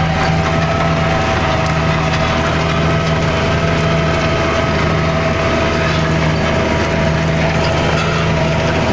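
Steady drone of a John Deere tractor's diesel engine working under load, with the PTO-driven sugarbeet harvester running behind it, heard from inside the tractor cab. The level holds even throughout, with a constant low hum and a steady higher whine.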